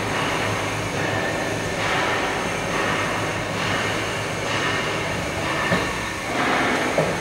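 Steady mechanical running noise of a crane-hung, motor-driven clamshell grab in operation, its drive unit running while the shells work. A short sharp click comes about three-quarters of the way through and another near the end.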